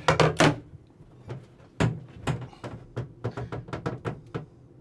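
Irregular light knocks and taps, a louder cluster right at the start and then a dozen or so softer ones: hands and a marker being worked against the bathtub rim and the wooden wall studs.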